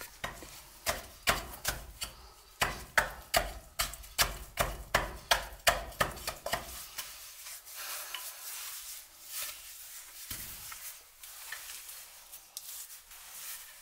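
A hand-held pick-hammer chopping into a soft stone block in quick, even blows, about two or three a second, for the first six seconds or so. After that come quieter scraping and a few lighter knocks as the stone is shaved down.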